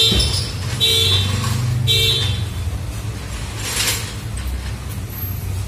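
Steady low engine rumble with three short horn toots about a second apart, followed a moment later by a brief hiss.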